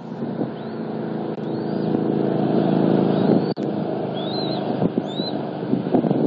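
Road traffic passing near the nest: a vehicle's engine rumble grows to its loudest about two to three seconds in, then eases. Several short, high, arching peeps from a newly hatched bald eagle chick sound faintly over it.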